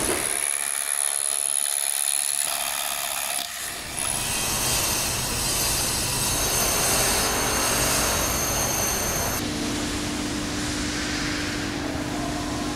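Construction-site work noise: a cordless power tool working on a concrete slab, then steady machinery noise, with a low steady hum joining about three-quarters of the way through as a mobile crane lifts a steel pipe.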